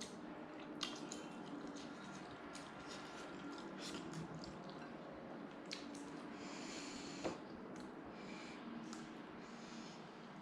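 A person chewing roast chicken close to the microphone: soft wet chewing and lip smacks with scattered small clicks, one sharper click a little past the middle.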